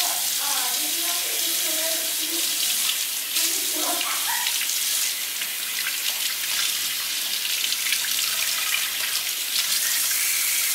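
Kitchen tap running steadily, water splashing over a cut torpedo scad held by hand under the stream and into a stainless steel sink.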